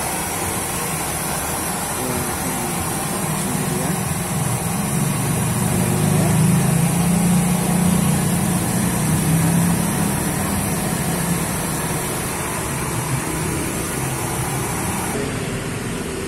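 Steady motor-vehicle engine noise, a low hum that swells in the middle and then eases, with a high steady hiss over it that stops near the end.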